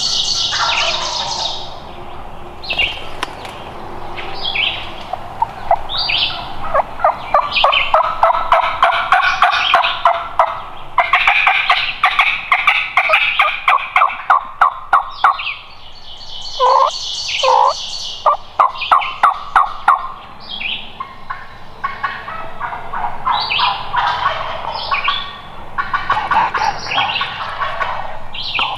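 Turkey calls: long runs of quick, evenly spaced yelping notes, repeated through most of the stretch, of the kind heard on a spring turkey hunt.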